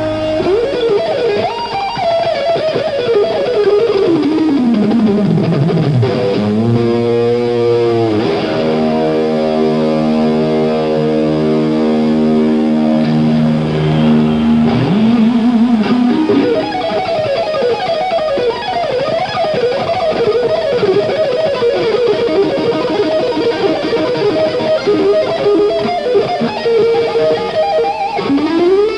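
Electric guitar solo on a Stratocaster-style guitar played live. A fast run of notes falls in pitch, then a long note is held for several seconds, wavering at first, and after that rapid runs sweep up and down.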